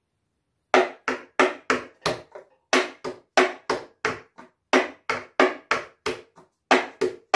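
Hand percussion: a steady run of sharp hand strikes, about three a second, starting under a second in, some strokes louder and some lighter in a repeating waltz pattern (taca, taca, tan).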